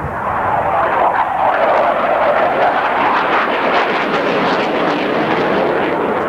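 Jet noise from an F/A-18 Hornet's twin General Electric F404 turbofan engines as the fighter flies display manoeuvres: a loud, steady rushing sound.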